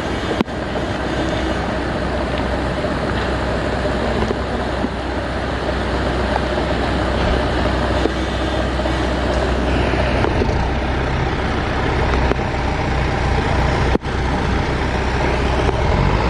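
Heavy diesel machinery, such as a bulldozer, running steadily with a dense, continuous engine and mechanical noise. The sound dips for an instant twice, shortly after the start and near the end.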